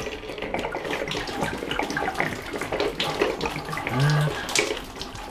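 Water spilling and splashing from an opened pipe fitting as the line drains after a fitting is unscrewed from the tee.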